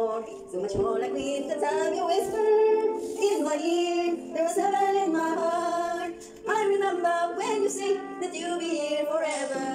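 A woman singing along to a karaoke backing track, holding long melodic notes over the music.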